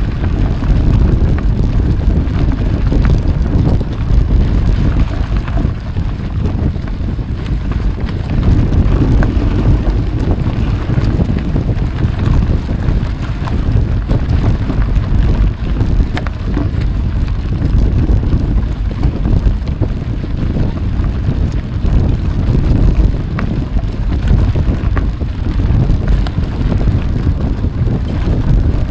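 Loud wind rumble on the microphone of a camera riding along on a mountain bike in motion, with a few faint clicks.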